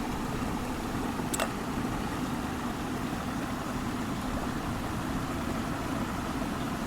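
Steady rushing noise of water falling at a waterfall, with wind buffeting the microphone. A single sharp click comes about a second and a half in.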